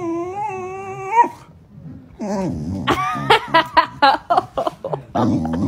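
A dog vocalizing in protest: a long, wavering whine-howl for about the first second, then after a short pause a falling call and a quick run of short yips and grumbles, with a lower growl-like call near the end.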